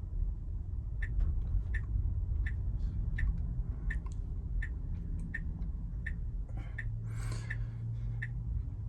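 A Tesla Model Y's turn-signal clicking evenly, about once every 0.7 seconds, over steady low road rumble inside the cabin. A brief rushing sound comes about seven seconds in.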